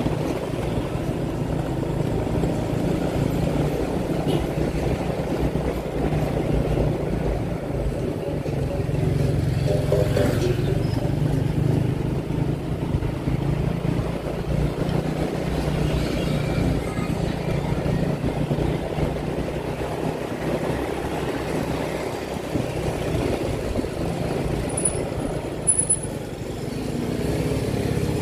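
Motorbike engine running steadily with road noise, heard from the moving bike. Another motorbike passes about ten seconds in.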